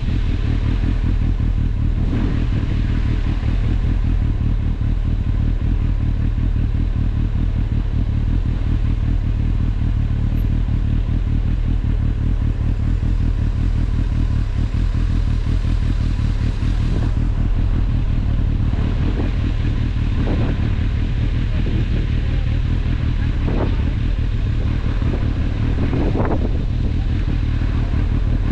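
Kawasaki ZRX1100's inline-four engine running steadily at speed, with a few short swells in the second half.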